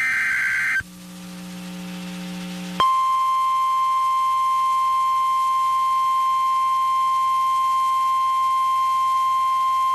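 NOAA Weather Radio emergency alert: the end of a burst of screechy SAME data tones, then after about two seconds the steady 1050 Hz warning alarm tone. The alarm tone signals that a new warning is about to be broadcast.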